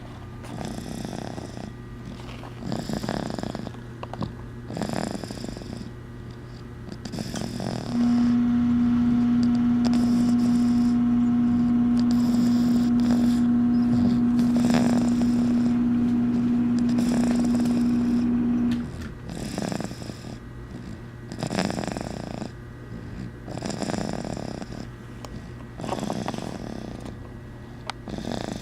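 Slow, rhythmic snoring, one breath about every two seconds. About eight seconds in, a loud steady hum starts over it, lasts about ten seconds, then cuts off suddenly.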